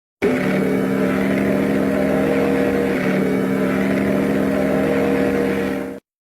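Train sound effect: a steady, held sound made of several pitches over a rumble. It starts suddenly and cuts off abruptly after about six seconds.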